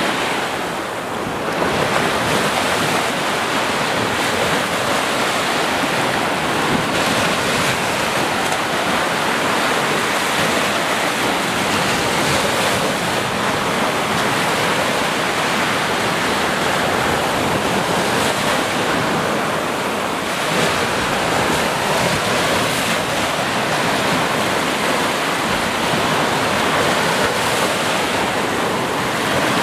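Small surf breaking and washing up a sandy beach: a steady, continuous rush of water with no distinct individual wave crashes.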